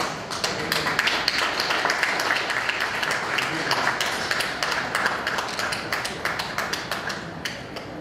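Audience clapping: many irregular hand claps that thin out and stop near the end.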